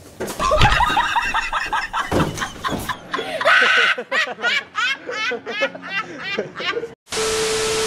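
A man laughing hard in rapid, high-pitched bursts, each 'ha' rising and falling in pitch. About seven seconds in, the laughter cuts off and a steady loud hiss with a held tone begins.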